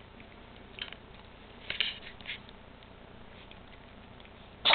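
Cats nibbling and sniffing loose catnip on a hardwood floor, a few faint soft clicks, then near the end one short, sharp cat sneeze.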